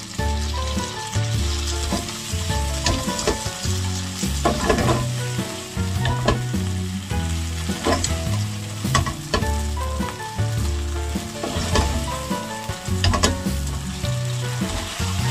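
Oysters frying in butter in a nonstick pan, sizzling steadily as they are stirred with chopsticks and tossed to coat them in seaweed tsukudani paste, with scattered sharp clicks from the stirring and tossing.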